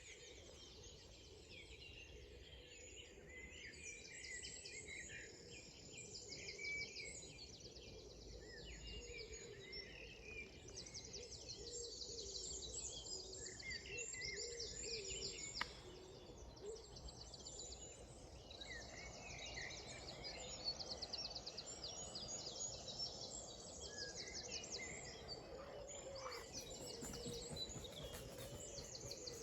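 Early-morning dawn chorus: several songbirds singing over one another, with fast trills and short repeated phrases, over faint steady background noise. One sharp click about halfway through.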